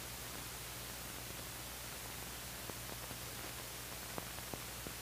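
Steady hiss and low hum of an old soundtrack's background noise, with a few faint clicks in the second half.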